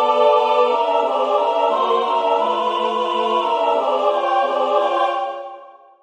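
Three-part choral music: voices holding sustained notes in harmony, moving from chord to chord, then dying away near the end into a rest.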